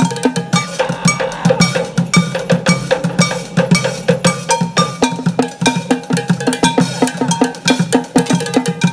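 Bucket drumming: sticks beating upturned plastic buckets and large plastic water-cooler jugs in a fast, busy rhythm, with upturned metal cooking pots struck for ringing, bell-like accents.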